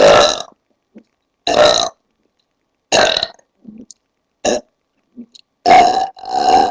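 A woman belching on purpose: about six loud burps in quick succession, each under half a second, the last two nearly back to back, with faint short sounds in the gaps between them.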